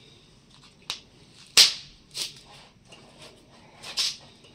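Handling noise from a manjha spool (charkhi) being picked up and turned: about four short, sharp rustles and knocks, the loudest about a second and a half in.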